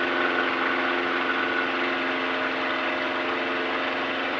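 Van's RV-6 light aircraft's piston engine and propeller running steadily at full takeoff power during the takeoff roll, heard from inside the cockpit as an even drone.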